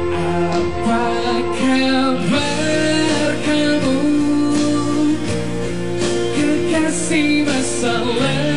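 Live band performing a song, with electric guitars and bass guitar playing and a held vocal line sung over them.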